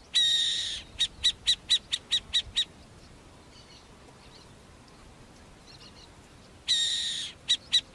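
High-pitched animal calls: a long ringing note followed by a quick run of about eight short notes, then a quiet stretch, and the long note with a few short notes again near the end.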